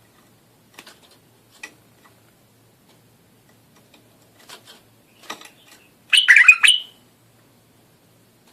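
Bulbul calling: a few faint short chirps, then one loud, brief burst of song about six seconds in.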